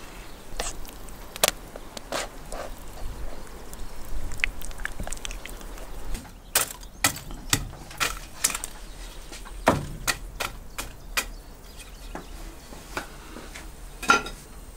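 Metal kebab skewers handled and charcoal raked in a brick grill: irregular sharp clinks, knocks and scrapes, thickest about six to nine seconds in.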